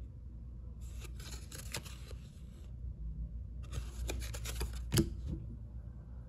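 Glossy football trading cards being handled: two stretches of rustling and sliding card stock with small ticks, the second ending in a sharp tap about five seconds in as a card is set down on the pile. A steady low hum runs underneath.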